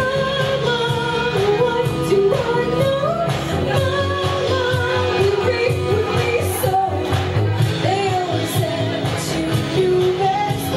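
A woman singing a pop song live over a karaoke backing track with a steady beat.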